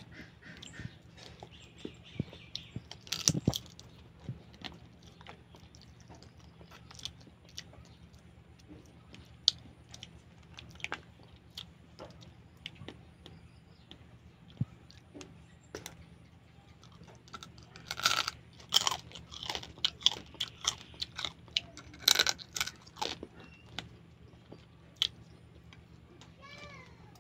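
Whole cooked crab being eaten by hand: shell and legs cracking and crunching between fingers and teeth, with chewing. Scattered sharp cracks, densest in a run about two-thirds of the way through.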